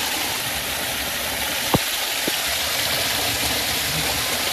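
Water streaming and dripping steadily from an earth overhang into a flooded hollow, an even splashing rush, with a short knock a little under two seconds in.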